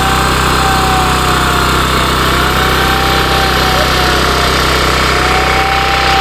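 Heavy machinery running steadily: a constant engine hum under a whine that wavers slowly up and down in pitch.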